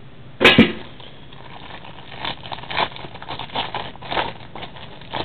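Clear plastic wrap on a trading card pack crinkling in short, irregular crackles as it is peeled off, after one louder noise about half a second in.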